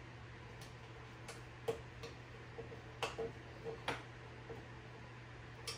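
Light, irregular metallic clicks and taps, about a dozen, as a baritone saxophone's brass key guard and its small screws are handled and fitted back onto the body, over a faint steady hum.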